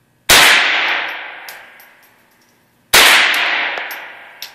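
.22 rifle fired twice, about two and a half seconds apart. Each shot is a sharp crack with a long echo that dies away in the indoor range.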